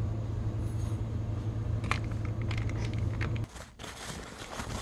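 A steady low machine hum with a faint click about two seconds in; the hum cuts off suddenly about three and a half seconds in, leaving quieter handling noise.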